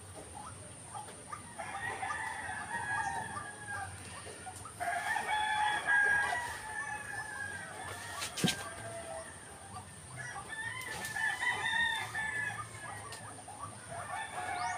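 White-breasted waterhen calls: repeated 'ruak-ruak' phrases in several bouts of a few seconds each, with a single sharp click about eight and a half seconds in.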